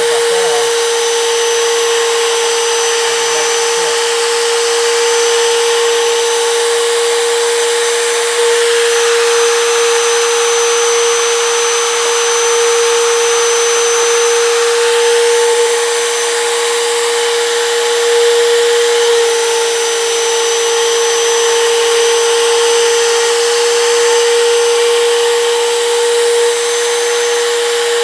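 DeWalt compact router running steadily at full speed: a high whine over a dense hiss. Its pitch and level dip slightly every few seconds as the bit is moved back and forth through a wooden block.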